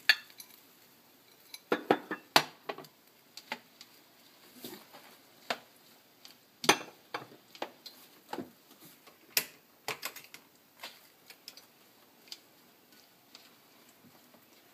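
Metal tongs clinking and knocking against a frying pan as sliced mushrooms, bell peppers and tomatoes are turned over: an irregular string of sharp clicks, thinning out towards the end.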